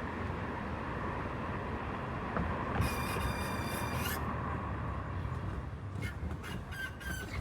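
2018 Mazda CX-5 on the move, with a high-pitched metallic squeal lasting over a second about three seconds in and a quick series of short squeaks near the end. This is a brake pad retaining clip rubbing on the brake rotor.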